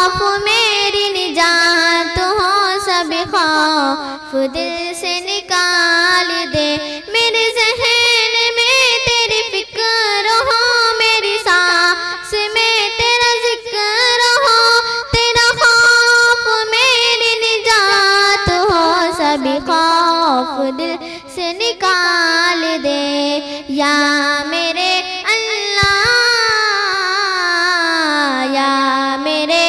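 A young girl's solo voice singing an Urdu devotional dua (nasheed), in long held notes with wavering, ornamented melodic turns; near the end the melody dips low and climbs again.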